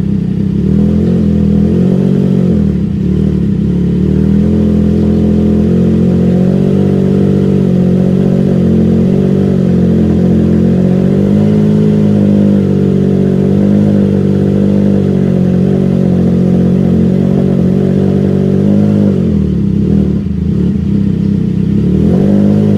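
Triumph Trident 660's inline three-cylinder engine held steady at about 2,000 rpm through a full aftermarket exhaust system with an added resonator, built to give a deeper tone. The pitch sags briefly a couple of seconds in and again near the end, then comes back up.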